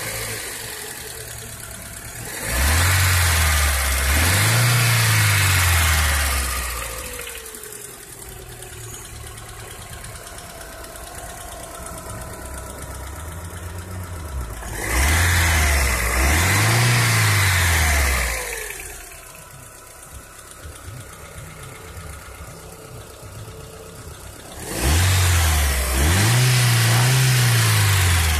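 Opel Astra F's 1.4-litre 8-valve C14SE four-cylinder petrol engine, warmed up, idling and revved three times. Each time the revs climb, hold for about three to four seconds and fall back to idle.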